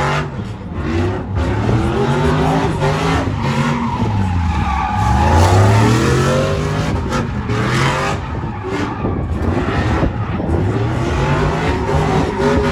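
A car engine revving up and down over and over while its tyres squeal and skid without a break.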